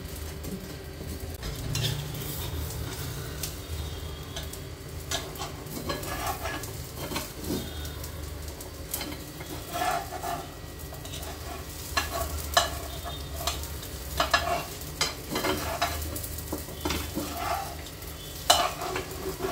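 Egg omelet with bread slices sizzling in oil in a flat tawa, while a flat steel spatula scrapes and clicks against the pan in short irregular strokes as it is worked under the omelet to loosen it for turning.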